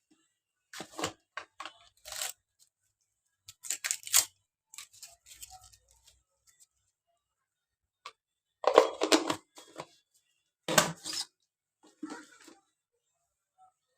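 Kitchen handling noises in short separate bursts: rustling, tearing and clattering, with quiet gaps between them.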